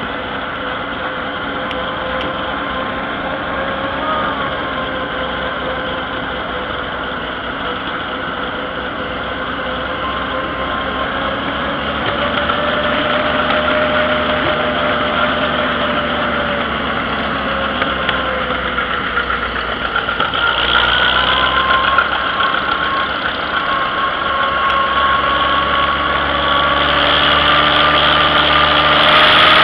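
Green antique farm tractor's engine running steadily under way, heard from on board. The engine note rises a little about two-thirds of the way through, and the sound grows louder toward the end.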